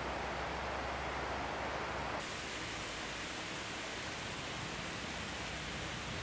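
Steady outdoor rushing noise with no distinct events. Its tone changes abruptly about two seconds in, at a cut in the recording, becoming thinner, brighter and slightly quieter.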